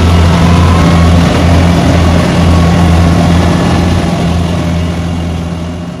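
Kubota rice combine harvester's engine running steadily under a regular low throb, fading out near the end.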